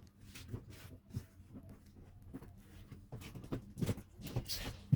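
Scattered soft rustles and small taps of an item being handled close to the microphone, with a louder rustle about four and a half seconds in and a sharp click at the very end.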